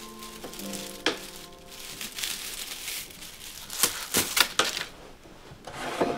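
Bundles of thin split-bamboo uchiwa fan ribs being handled on a workbench, rustling and clicking, with a quick cluster of sharp clacks about four seconds in. Soft background music with held notes in the first couple of seconds.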